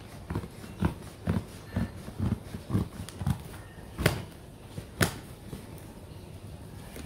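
Scissors working at the packing tape on a cardboard box: a run of about seven dull knocks on the box, roughly two a second, then two sharp clicks about a second apart.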